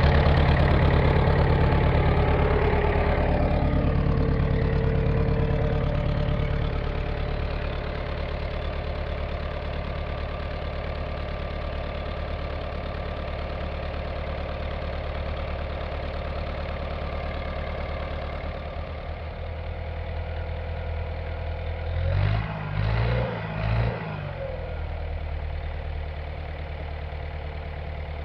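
Early-1970s John Deere backhoe engine idling steadily, its level easing down over the first several seconds. A little past the middle, the engine note rises and falls three times in quick succession.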